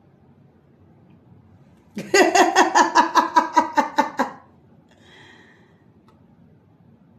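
A woman laughing out loud: a burst of about a dozen quick, evenly spaced "ha" pulses lasting a little over two seconds, starting about two seconds in.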